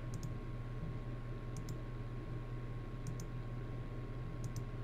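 Computer mouse clicks, each a quick press-and-release pair, repeating four times about every second and a half over a steady electrical hum, as a randomizer is run again and again.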